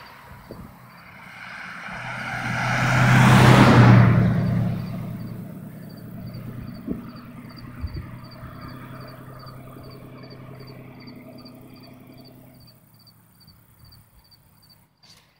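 A car drives past close by, its tyre and engine noise swelling to a peak about four seconds in and then fading as it goes away, leaving a low hum that dies out. From around five seconds in, an insect chirps steadily at a high pitch, about three chirps a second.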